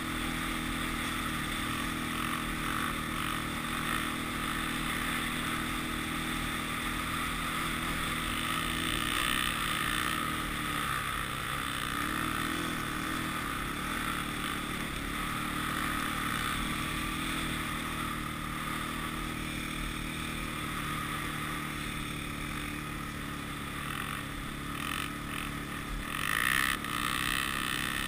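Honda TRX400EX sport quad's single-cylinder four-stroke engine running under way, heard from the rider's seat, its pitch shifting now and then with the throttle and briefly louder near the end.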